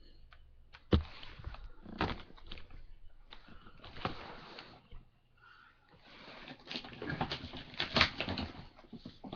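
A package being handled and opened: rustling with many sharp knocks and clicks, the sharpest knock about a second in, dipping quieter around the middle.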